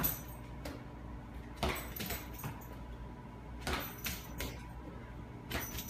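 Metal tags on a Pembroke Welsh corgi's collar jingling in short bursts about every two seconds, four times, as the dog jerks its head up at a tossed ball, over a faint steady low hum.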